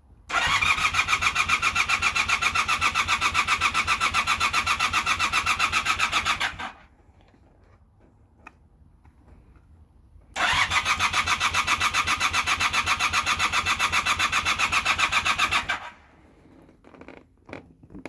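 Honda Super Dream motorcycle engine being cranked on its electric starter in two long attempts, each a rapid, even pulsing that stops abruptly without the engine catching: the bike won't start.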